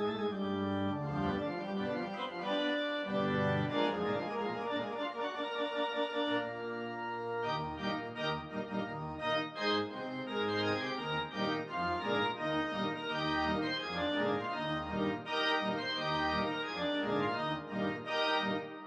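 Instrumental background music of long held chords over moving bass notes, the added score of a silent cartoon; it shifts to a new passage about seven seconds in.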